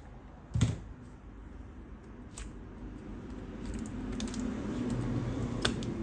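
Hands working on an opened laptop's internals: a sharp knock about half a second in, a few lighter clicks, then rustling handling noise near the end as both hands press and grip the battery pack, with another click.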